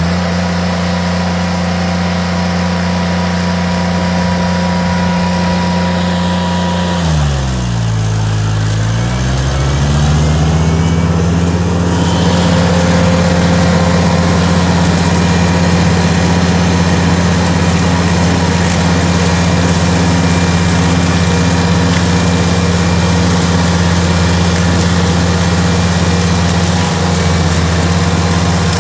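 Ditch Witch SK600 compact tool carrier's engine running steadily while driving a flail mower head through tall grass. About seven seconds in, the engine note dips in pitch and comes back up over two or three seconds, then runs on slightly louder with more hiss.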